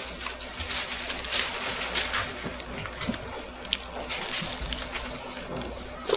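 Bible pages rustling as they are turned, in short scattered rustles and soft ticks over a steady low hum.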